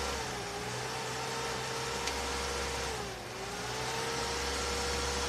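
Cooling fan of a Dnipro-M SAB-258D welding inverter running with a steady hum. Its pitch sags twice, once near the start and again about three seconds in, and climbs back each time, as the fan loses power and speeds up again: the sign of a loose contact or broken wire in the fan's leads.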